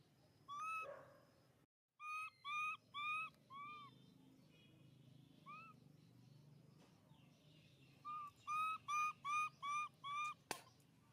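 Short, high, whistle-like animal calls, each rising and falling in pitch: one near the start, a run of four about two seconds in, a single one midway, and a run of six near the end, followed by a sharp click.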